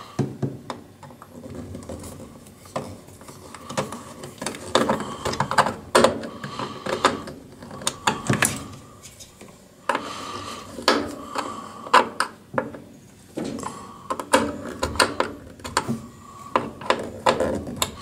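Screwdriver turning a screw into the sheet-metal mounting of a furnace limit switch: irregular scraping, clicking and tool-on-metal handling as the screw is driven home.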